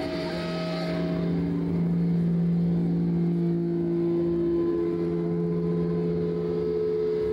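Amplified electric guitar holding long, droning notes that change pitch every couple of seconds.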